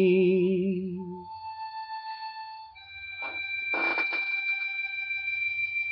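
A man's held sung note, 'thee', with vibrato fades out about a second in. Steady held instrumental notes of the hymn's accompaniment carry on, moving to a lower note about three seconds in, with a brief rustling noise near the middle.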